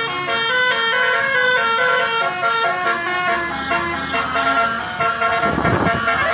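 Basuri telolet horn, a multi-tone vehicle horn, playing a quick tune of short stepped notes. From about five and a half seconds in, a rougher low rumble joins it.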